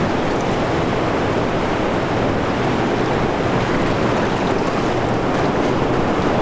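Steady, loud rushing noise of wind buffeting the microphone over river water, even throughout with no distinct events.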